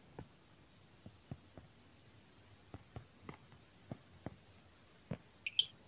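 Quiet background hiss with about a dozen faint, irregularly spaced clicks, and a brief high squeak near the end.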